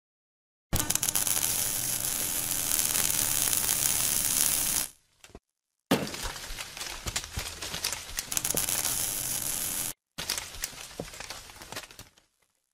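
Designed sound effects for an animated logo intro: a dense, hissy crackle of many small clicks that starts abruptly under a second in and cuts off near five seconds. It returns with a sharp hit about a second later, and after a brief gap fades out near the end.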